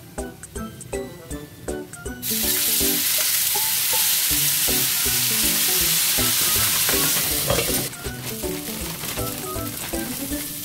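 Gyoza frying in a hot pan: a loud sizzle starts suddenly about two seconds in and drops to a quieter sizzle about eight seconds in.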